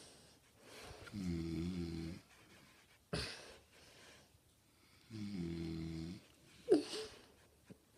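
A man snoring in his sleep with an odd-sounding snore. Twice, a pitched, buzzing snore lasts about a second and is followed a second or so later by a short, sharp puff of breath.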